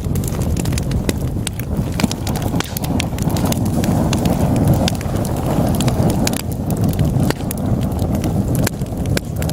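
Wood logs burning in a fireplace: a steady low roar of flames, swelling a little midway, with many sharp crackles and pops from the burning wood.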